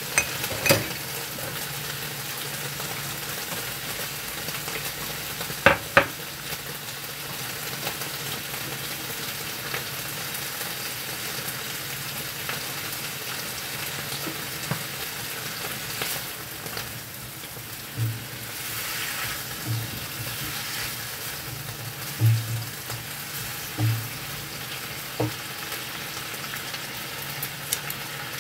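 Floured chicken pieces deep-frying in hot oil in a wok, a steady sizzle throughout. A few sharp clicks cut through it, two close together about six seconds in, and several short dull knocks come later.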